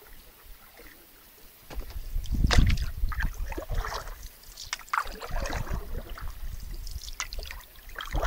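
Canoe paddle strokes, the blade splashing and sloshing in the water, starting about two seconds in and repeating every second or two, with a low rumble underneath.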